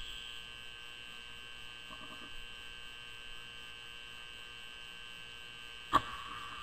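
Steady electrical mains hum with a fixed high whine. Near the end comes one sharp click from the single-stage reloading press, with a short ring after it.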